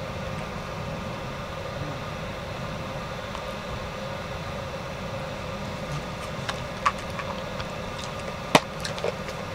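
A dog chewing a hand-fed treat: a few sharp crunches and clicks in the second half, over a steady low hum.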